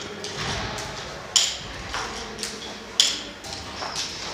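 Rope-ascending gear clicking as a climber moves up a caving rope: a sharp metallic click about every one and a half seconds with each stroke, with fainter clinks between.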